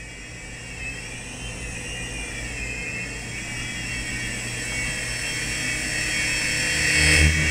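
Small electric toy RC helicopter in flight: its motor and rotors give a steady high whine that wavers a little in pitch and grows louder as it comes close. A loud low rumble joins in near the end.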